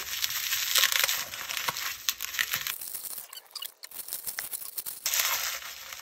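Plastic bubble wrap crinkling and rustling as it is pulled off a glass jar. The rustling comes in a long burst of over two seconds, then a quieter spell of scattered crackles, then a second short burst near the end.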